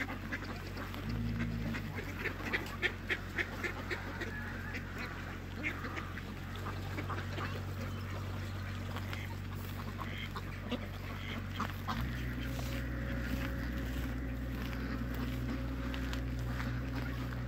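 Ducks quacking in a run of short, quick calls, densest a few seconds in and thinning out later, over a steady low rumble.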